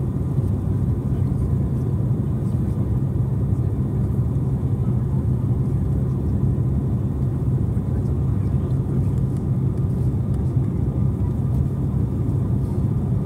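Steady low rumble of an airliner in flight, engine and airflow noise heard inside the passenger cabin.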